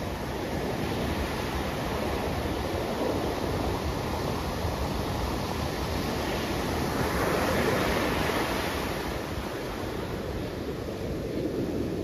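Ocean surf on a sandy beach: a continuous wash of breaking waves and foam, swelling louder about seven seconds in as a wave breaks, then easing off.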